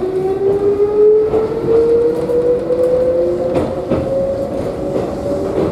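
Electric train heard from inside the car, its traction motors whining in a tone that rises steadily in pitch as the train picks up speed. A few wheel clacks over rail joints sound along the way.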